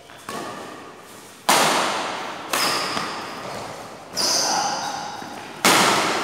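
Badminton rackets striking the shuttlecock during a rally, five sharp hits about a second apart, each ringing on in the echoing hall; the hardest hits come about a second and a half in and near the end.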